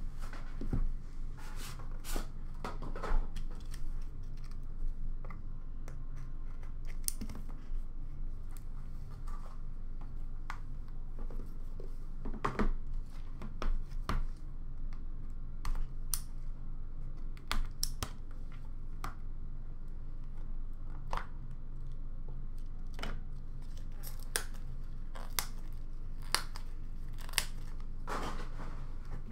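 Trading card box and its packaging being handled and opened by hand: scattered tearing and crinkling of wrap and short knocks and scrapes of cardboard, over a steady low hum.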